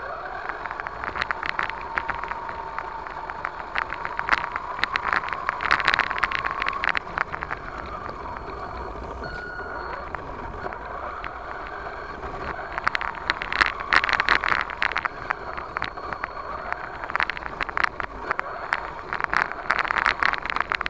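A 1/10-scale RC monster truck driving on dirt, heard from a camera mounted on the truck: a steady motor whine under dense rattling and clicking from the chassis and the rough ground. It goes quieter for a few seconds in the middle, then the rattling picks up again.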